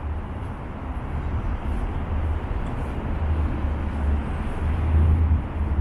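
City street ambience: traffic noise under a strong, steady low rumble.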